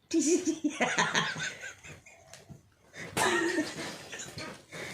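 People laughing in two bouts: one breaks out at once, and another comes about three seconds in.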